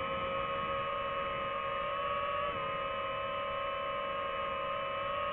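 Multirotor drone's motors and propellers whining at a steady pitch, which dips slightly about two and a half seconds in as the throttle changes.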